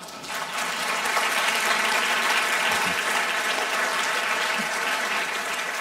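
Audience applauding, breaking out suddenly and holding steady for several seconds before easing slightly near the end.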